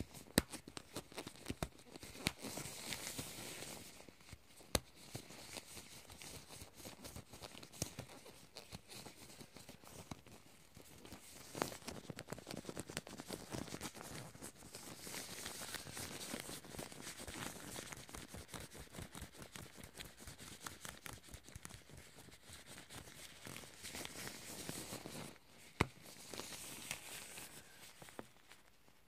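Sticky hair-removal adhesive being pressed and peeled close to the microphone: a dense crackle of small tacky clicks and peeling sounds, swelling and easing in waves, with a few sharper taps.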